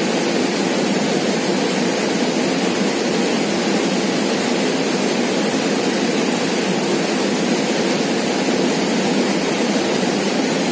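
Steady, even rush of flowing river water, a dense roar that does not let up.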